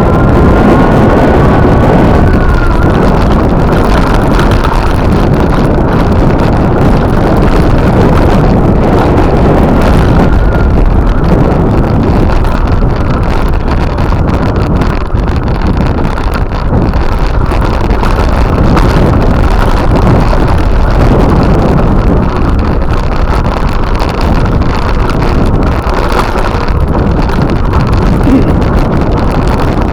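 Loud, steady wind buffeting the microphone, a dense low rumble.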